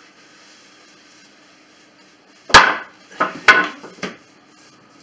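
Wooden boards knocking against each other and the floor as they are shifted about: one sharp knock about halfway through, then a quick clatter of several knocks a second later.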